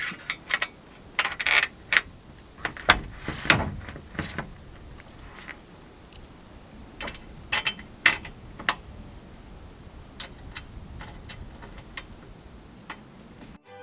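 Small metal hardware clinking and rattling as a bolt, washer and nut are fitted by hand through a steel unistrut channel into a solar panel's frame: irregular sharp clicks, busiest in the first few seconds, with a duller knock about three seconds in.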